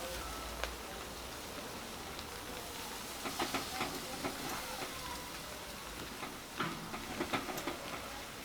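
Steady hiss of chops and chicken sizzling on a barbecue grill, mixed with rain. Two clusters of light clicks and knocks come about three seconds in and again near seven seconds as the meat is handled on the grill.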